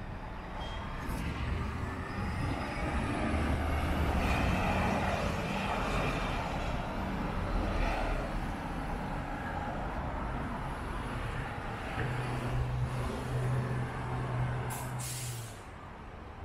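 Street traffic driving past: steady tyre and engine noise that swells as vehicles pass close. A low engine hum holds for a few seconds near the end, and a short hiss comes just before the end.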